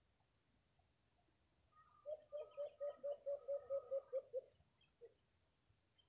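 A dove, likely the white-eared brown dove, gives a run of about eleven quick, low cooing notes, starting about two seconds in and lasting a little over two seconds. Under it runs a steady high drone of crickets.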